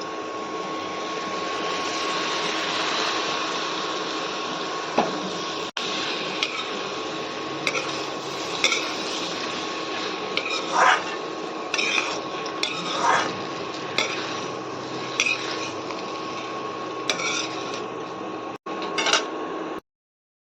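A metal spoon or spatula stirring food in a cooking pan, with repeated short scrapes and clinks against the pan, over a steady hiss and hum. The sound cuts off abruptly just before the end.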